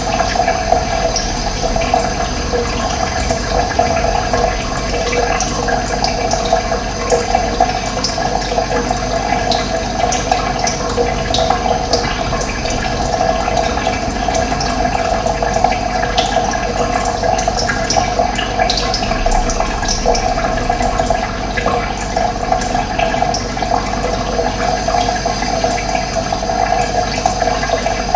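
Running water flowing steadily, with short high chirps of wild birds scattered over it.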